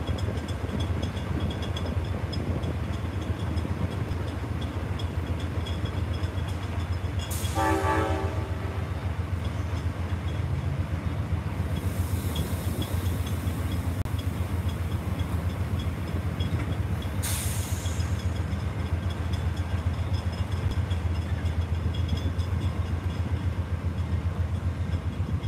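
Amtrak Superliner passenger train at a platform, rumbling low and steady as it stands and then begins to roll slowly. A short horn blast comes about eight seconds in. A high hiss follows from about twelve to sixteen seconds, with another brief hiss about a second later.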